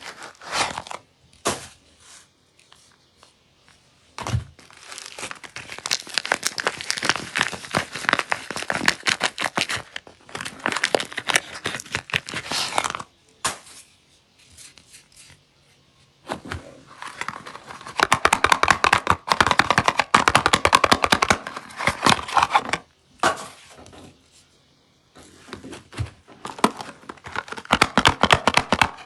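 Soap packaging being unwrapped by hand: wrapper crinkling and tearing in several long stretches with short pauses between, and a soft thump about four seconds in.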